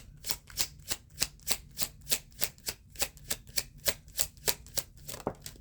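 A deck of oracle cards being shuffled by hand, a steady run of sharp card slaps about three a second that stops near the end.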